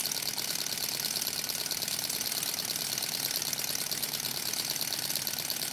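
Small alcohol-fired model Stirling engine with a helicopter rotor running, its mechanism giving a steady, fast, even clatter. The maker thinks its burner is running out of alcohol.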